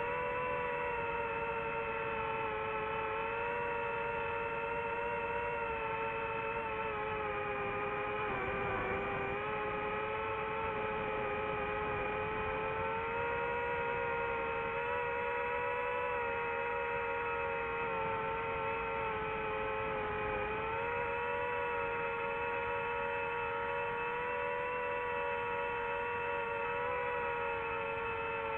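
DJI FPV drone's motors and propellers whining steadily in flight, the pitch sagging briefly about a third of the way in and again about two-thirds through as the throttle eases.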